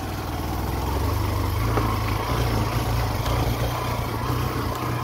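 Small motorbike engine running at low speed on a rough dirt track: a steady low rumble that grows slightly louder about a second in.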